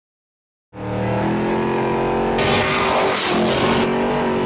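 A 2500-horsepower blown street car's engine running at a steady speed as the car drives, heard from inside the cabin; it comes in suddenly under a second in. A rush of noise rises over it for about a second and a half in the middle.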